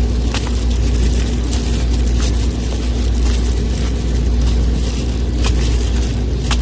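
Steady low rumble of a motor or vehicle, with a faint steady hum and scattered clicks and crackles.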